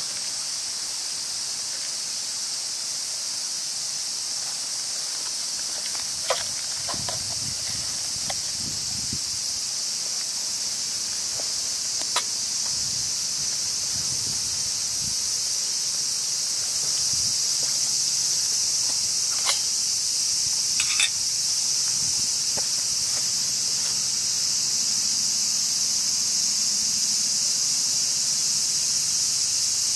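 A steady, high-pitched drone of summer insects, with a few light clicks and taps of metal cookware being handled.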